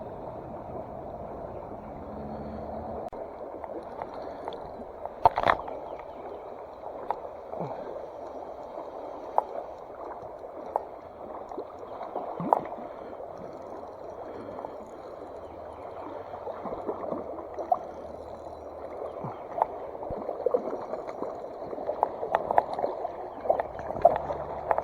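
Mountain trout stream running and gurgling steadily, with scattered sharp clicks and small splashes, the loudest about five seconds in and several more near the end.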